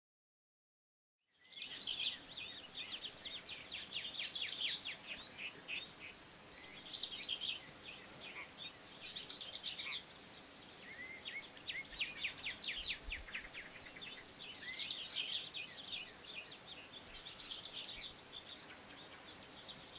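Outdoor nature ambience: birds singing rapid trills and chirps over a steady high-pitched insect hum, fading in about a second in.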